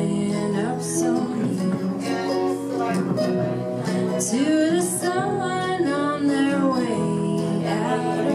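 Live acoustic song: strummed acoustic guitar with a woman singing.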